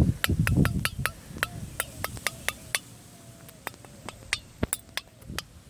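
A run of sharp, irregular clicks or taps, roughly three or four a second, with a low rumble of handling noise at the start.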